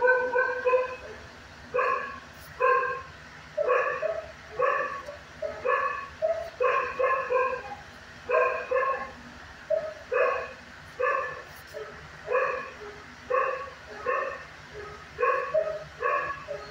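A dog barking repeatedly, about one bark a second and sometimes two in quick succession, in a steady series.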